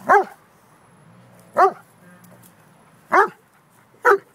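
Dog barking in rough play: four short, sharp barks, the first three about a second and a half apart and the last closer, each dropping in pitch at its end.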